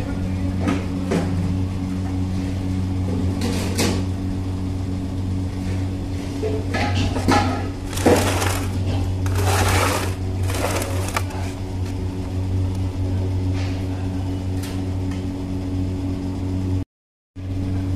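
A knife scoring through a slab of crumbly Mysore pak (a gram flour, ghee and sugar sweet) and scraping on the metal tray, with short gritty strokes, over a steady low machine hum. The sound cuts out briefly near the end.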